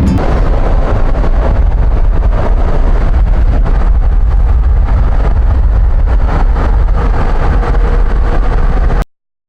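Loud, steady rumble and rushing of a vehicle on the move, road and engine noise. It cuts off suddenly near the end.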